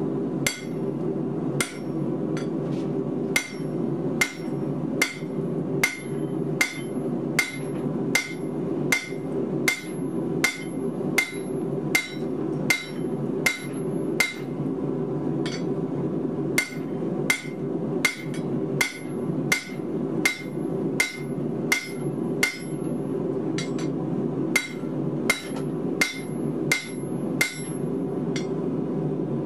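Hammer blows on a round steel bar laid across a hot steel block on an anvil, driving the bar in to form the groove of a bottom swage. The blows come at a steady rate of a little under two a second, with a short pause about halfway through.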